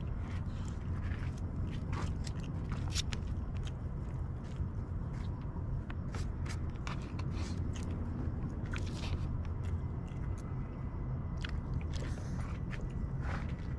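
Close-up eating sounds: chewing, with scattered small clicks and scrapes, over a steady low rumble.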